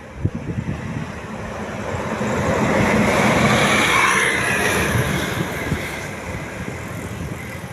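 Tour bus driving past, its engine and tyre noise swelling to a peak and then fading away, with a few sharp knocks in the first second.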